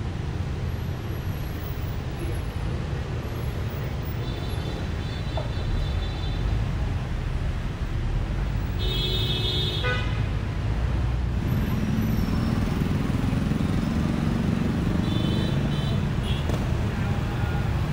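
City street traffic heard from the open top deck of a moving tour bus: a steady low rumble of engines and road noise. A vehicle horn honks for about a second about halfway through, with fainter short toots a few seconds before and later.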